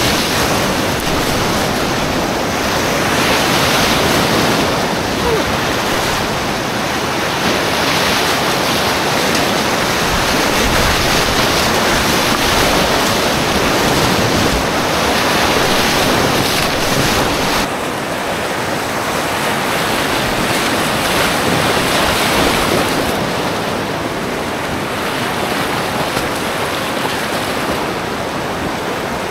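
Whitewater rapids rushing loudly and continuously around a packraft paddling down a steep gorge river, easing a little in the last third as the water calms.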